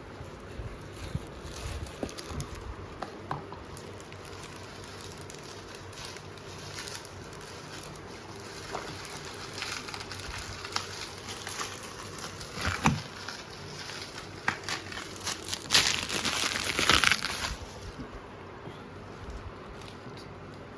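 Packaging crinkling and rustling as it is handled, with scattered small clicks and knocks. The rustling grows denser and loudest about two-thirds of the way through, then dies back.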